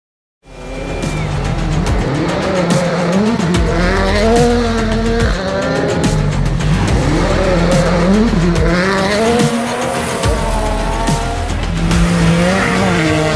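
Rally car engine at full throttle over music. It starts suddenly about half a second in, and its pitch climbs and drops back again and again as it shifts up through the gears.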